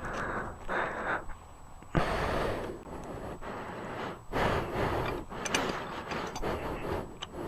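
Off-road motorcycle being ridden, heard mostly as wind gusting on the rider's microphone over the engine, in uneven surges with a sharp knock about two seconds in.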